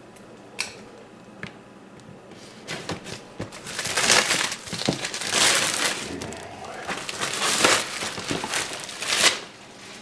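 Plastic wrapping on a computer power supply crinkling and rustling as it is cut and ripped open, in irregular bursts starting about three seconds in, after a couple of faint clicks.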